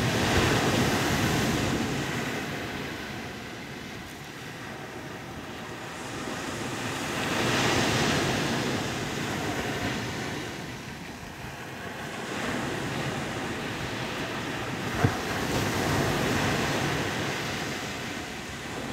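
Atlantic surf breaking on a sandy beach, rising and falling in slow surges every several seconds, with some wind noise on the microphone. A single sharp click about fifteen seconds in.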